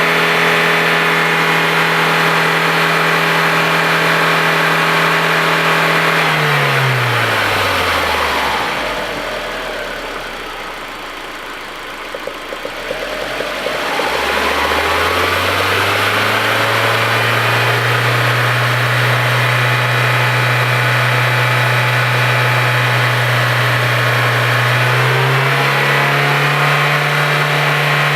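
Audi A4 1.8T turbocharged four-cylinder engine running at a steady speed. About six seconds in, its pitch slides down and the sound quietens. About fourteen seconds in it climbs back up to a steady, slightly lower note, then steps up a little near the end.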